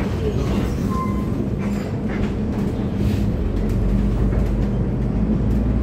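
City bus running through traffic, heard from inside the passenger cabin: a steady low engine-and-road rumble that grows a little louder about halfway through.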